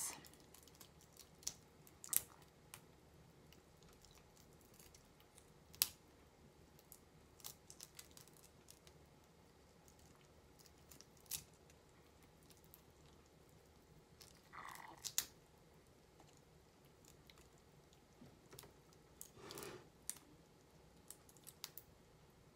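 Faint, scattered clicks and crackles of a raw shrimp's shell being peeled apart by hand, with two slightly longer soft sounds about two-thirds of the way through.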